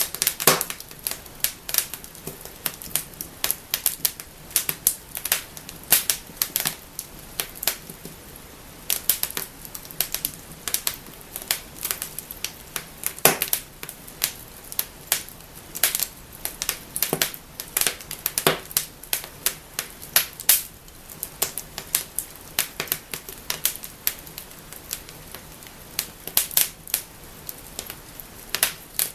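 Wood fire burning in a fireplace, crackling and snapping with many irregular sharp pops, some much louder than others, over a steady low hiss.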